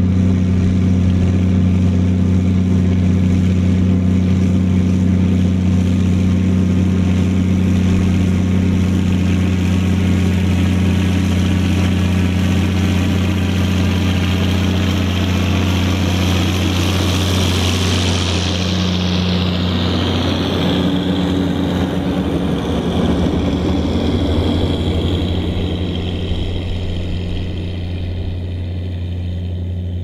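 Ford 8340 tractor's six-cylinder turbo diesel, straight-piped, working hard under load as it pulls a Massey Ferguson round baler gathering hay. It passes close by about halfway, its higher sound falling in pitch. It then gets slightly quieter as it moves away.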